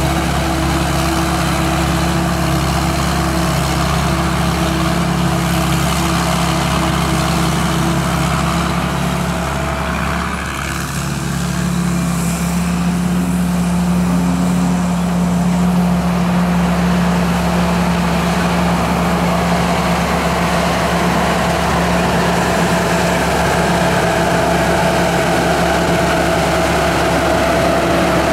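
SAK KM-D combine harvester's 260 hp turbocharged engine running steadily. About ten seconds in, the sound dips briefly and the engine's note shifts, then it runs on steadily.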